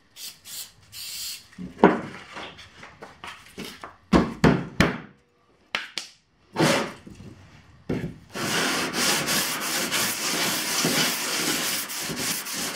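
A short hiss of an aerosol spray can and a few handling knocks, then from about eight seconds the bottom of a metal angle-iron fence rubbed back and forth on an abrasive sheet in a steady scraping, sanding off glue around its newly set magnets.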